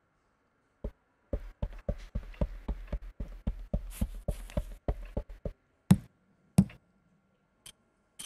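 Sound-effect footsteps of a small animated character: quick light taps on a wooden floor, about five a second for some four seconds, followed by two heavier thumps.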